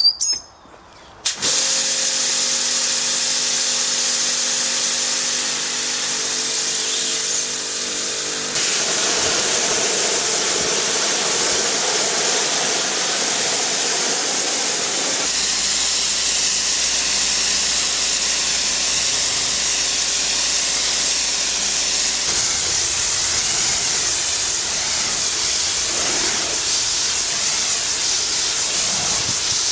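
Electric pressure washer spraying water through a rotating turbo (Tornado) nozzle: a loud, steady hiss of the water jet, at times with the pump motor's steady hum underneath. The sound starts about a second and a half in and shifts abruptly in tone a few times.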